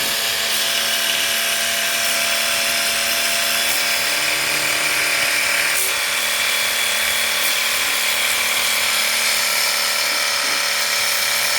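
Electric pressure-washer pump running steadily, with a constant motor hum under the hiss of its water jet, as it sprays water through a dirty split air conditioner's indoor unit to clean it.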